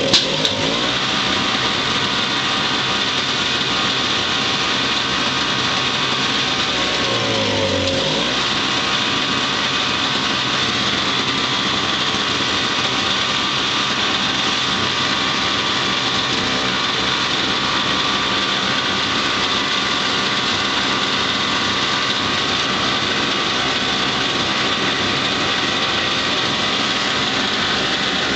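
MTD 4.75 HP single-stage snowblower engine running steadily.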